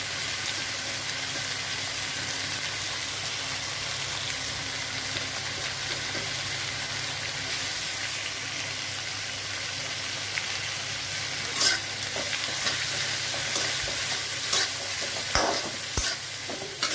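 Boiled horsegram frying in a kadai with a steady sizzling hiss. In the second half a metal spatula stirs it, with sharp scrapes and knocks against the pan.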